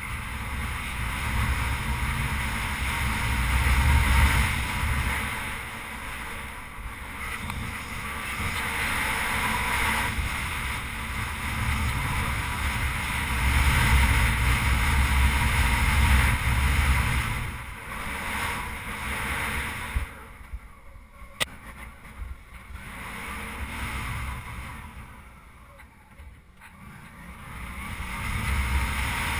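Suzuki V-Strom 650's V-twin engine running at speed under heavy wind rush on a helmet-mounted microphone, the level swelling and falling, with two quieter stretches in the second half and one sharp click partway through.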